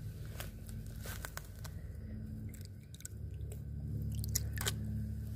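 Scattered sharp crackling clicks from a thin plastic food tray handled and dipped in shallow muddy water, the loudest a cluster about four and a half seconds in, over a low steady rumble.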